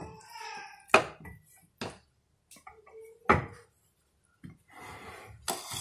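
Three sharp knocks on a wooden chopping board as a cleaver and raw chicken pieces are handled, the first the loudest, followed by a soft rustling near the end.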